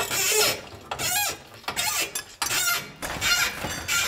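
Hand wrenches turning rusty exhaust flange bolts under a car: a run of about six short metallic ratcheting strokes with squeaks.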